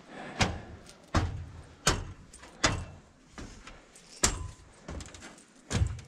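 Footsteps climbing mountain stairs, hard footfalls landing in a steady rhythm about every three-quarters of a second.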